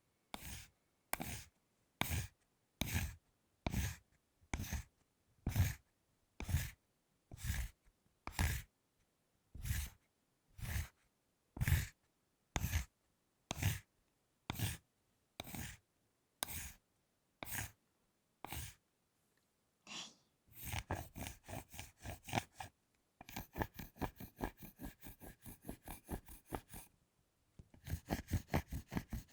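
A fork scraping over a thick chocolate bar with a crisp, crunchy コリコリ sound. Slow, even strokes come about one a second at first; then, after a short pause, quicker runs of short scrapes follow, several a second.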